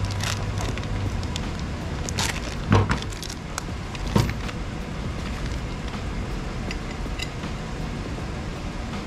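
A few sharp clinks and knocks from tools and steering-box hardware being handled, the two loudest about three and four seconds in, over steady low background noise.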